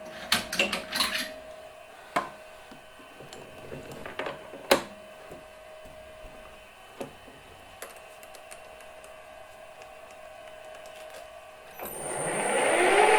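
Scattered small metal clicks and knocks of tools and the workpiece being handled at a stopped lathe, the sharpest about a third of the way in. Near the end the lathe motor starts and runs up to speed, steadying into an even running sound with a high whine.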